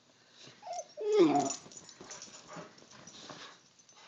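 Boxer dog giving a short whining grunt about a second in, its pitch falling, after a brief squeak just before it; faint rustling of bedding follows.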